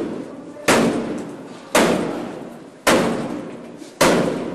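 Four heavy blows against a closed apartment door, about one a second, each a sharp bang that dies away slowly: police trying to break the door open.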